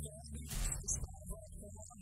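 Background music with a low steady drone, and a short burst of noise about half a second in.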